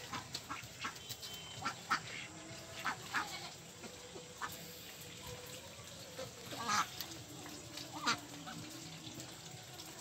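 Domestic ducks quacking, a few short, loud quacks at irregular intervals.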